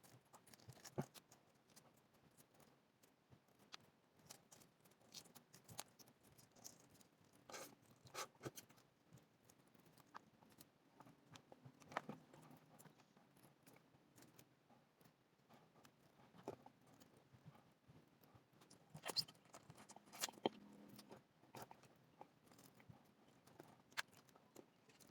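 Faint, scattered crackles and clicks of eggshell being picked off a hard-boiled egg by hand, with a few louder snaps about a second in, around eight and twelve seconds, and a cluster a little before the twenty-second mark. The shell is sticking and coming away with bits of the white.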